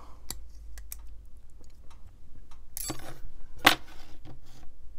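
Small metal clicks and clinks as a Demko AD20.5 folding knife is taken apart by hand and a liner is worked off the frame. A brief scrape comes just before the middle, then one sharper click a little later.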